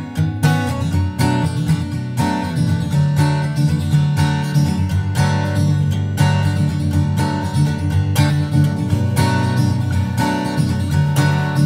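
Background music: acoustic guitar strummed with a steady rhythm.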